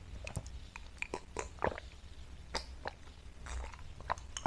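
Close-miked mouth sounds of a person eating and drinking: sips and swallows of water with chewing, heard as scattered small clicks.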